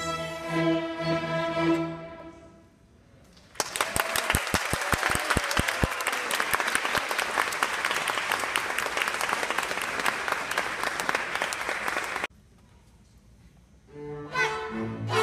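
Youth string orchestra of violins and cellos holding a final chord that fades out about two seconds in, followed after a brief pause by about eight seconds of clapping applause that cuts off suddenly. Near the end the strings start playing again.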